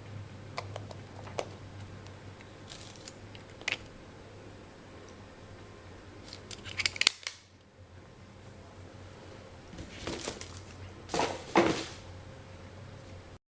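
Handling noises: scattered sharp clicks, then short bursts of clicking and rustling about seven seconds in and again near the end, over a low steady hum.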